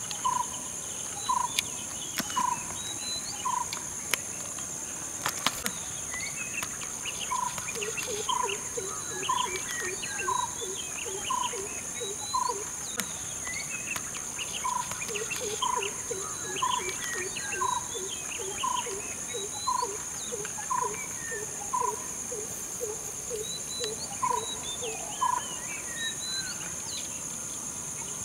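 Wild birds calling over a steady high-pitched insect drone: one short note repeated about once a second, a faster run of lower notes through the middle, and scattered higher chirps.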